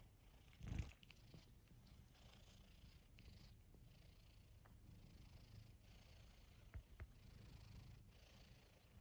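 Domestic cat purring faintly and steadily, with a soft thump just under a second in and two small clicks about seven seconds in.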